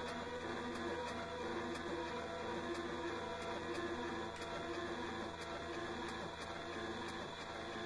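A repeating electronic loop from a sampler: regular thin clicks over steady tones and a pulsing note.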